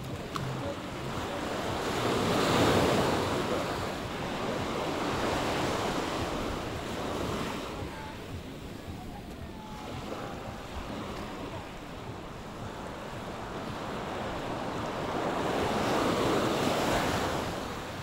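Small waves washing up on a sandy shore, a steady rush of surf that swells and ebbs, louder about two seconds in and again near the end, with some wind on the microphone.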